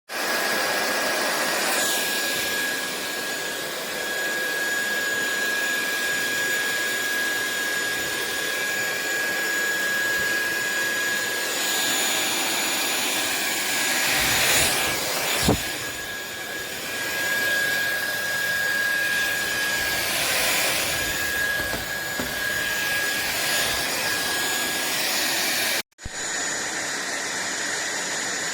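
SunSare cordless stick vacuum cleaner running: a steady rush of air with a thin, high motor whine. There is one short knock about halfway through, and the sound drops out for an instant near the end, then resumes.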